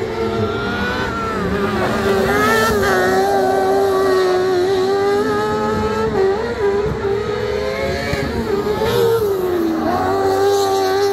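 Rallycross race car engines running hard at high revs, the pitch holding high with a few brief dips and recoveries as the drivers lift and change gear.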